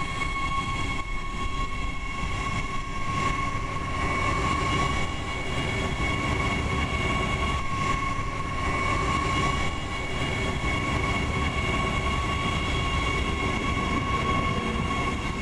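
Adelaide Metro A-City 4000 class electric multiple unit running slowly along the line, a low rumble of wheels and motors that grows from about four seconds in. A steady high-pitched tone with overtones sounds over it.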